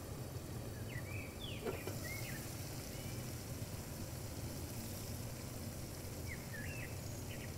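A bird chirping in short, quick up-and-down notes, a cluster about a second in and another near the end, over a steady low hum.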